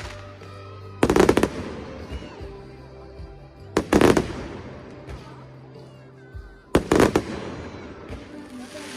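Fireworks going off in a display set to music: three loud bursts about three seconds apart, each a cluster of rapid cracks that fades off in a rolling echo.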